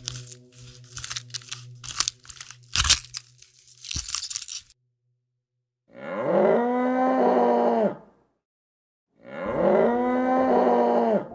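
A squirrel chewing food in quick crackly crunches for the first four seconds or so. Then, after a short silence, a cow moos twice, each moo about two seconds long, rising in pitch at the start and dropping at the end.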